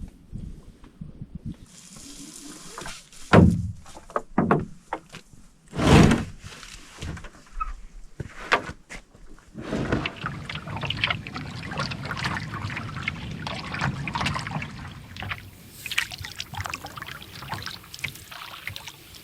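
A few loud knocks against a canoe, then from about halfway through, a canoe paddle working the water: steady splashing and dripping strokes.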